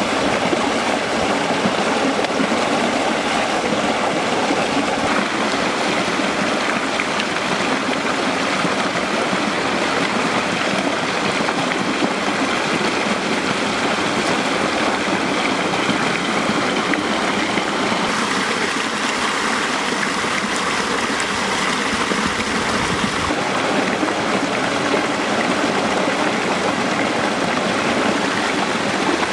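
Stream rushing over rocks: a steady, even rush of flowing water.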